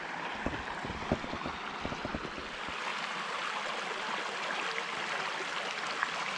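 Creek water running over rocks in a steady rush, with a few light knocks in the first couple of seconds.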